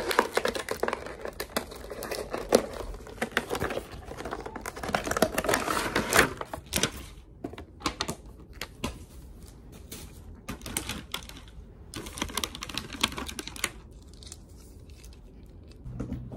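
Cardboard box and plastic packaging of a new tripod being opened and handled: crinkling and rustling for the first several seconds, then a string of scattered sharp clicks and taps.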